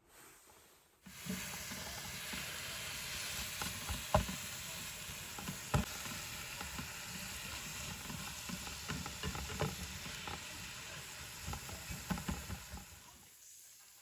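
Food sizzling in a hot pan. The sizzling starts suddenly about a second in, with scattered crackles and clicks, and fades away near the end.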